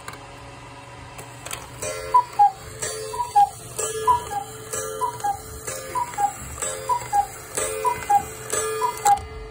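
Vintage rack-striking cuckoo clock calling the hour: eight two-note cuckoo calls from its bellows pipes, high then low, about one a second, each with a strike on its small wire gong. The calls start about two seconds in.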